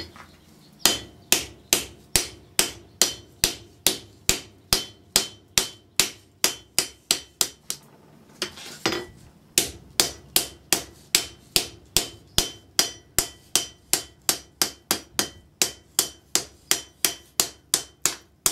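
Hand hammer striking red-hot flat bar steel on an anvil in a steady rhythm, about two to three blows a second, each with a short bright ring, with a brief pause about eight seconds in. The blows are dishing the curved bar so its inside face becomes slightly convex before it is rolled into a cone.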